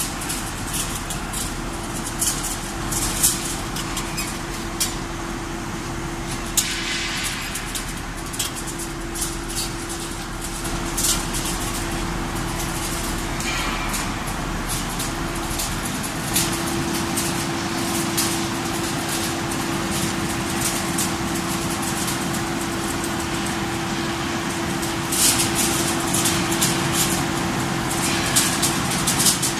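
Steady machinery hum in a factory, with a constant tone, scattered sharp clicks and a few short hisses.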